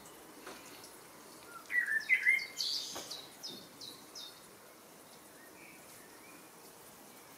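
A Sylvia warbler (fauvette) sings one short phrase about two seconds in: a few loud bending notes, then a run of about six shorter, higher notes that fade over the next two seconds. A faint outdoor hiss runs underneath.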